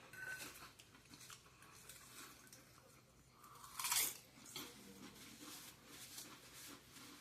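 A person chewing food with soft, faint crunches, and one louder crunchy bite a little under four seconds in.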